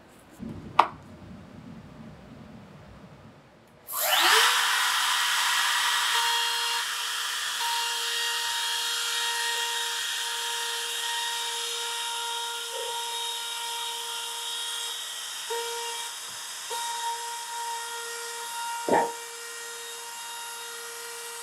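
A handheld trim router switches on about four seconds in, spins up to a steady high whine, and runs as it is guided along the edge of a solid-wood tabletop. A single sharp knock comes before it, about a second in.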